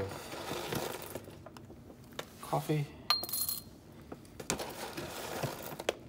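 Whole coffee beans tipped from a metal spoon into a glass jar, rattling and clicking against the glass in a couple of pours with scattered single clicks between them.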